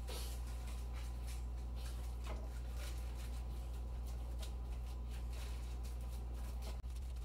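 Faint, irregular rustling and crinkling of a plastic slow-cooker liner as gloved hands press a raw meatloaf mixture down into it, over a steady low hum.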